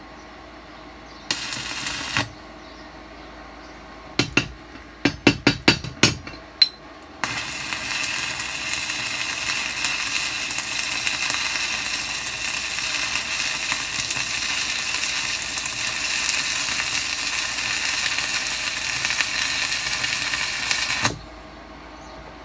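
Stick-welding arc from a Weldinger EW 140 Mini inverter welder: a brief arc about a second in, a string of sharp cracks as the electrode is struck to start the arc, then a steady crackling, spattering arc for about fourteen seconds that cuts off suddenly near the end when the arc is broken.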